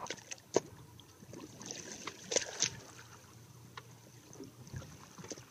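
Water lapping and splashing against a boat's side, with a few sharp knocks in the first second, the loudest about half a second in.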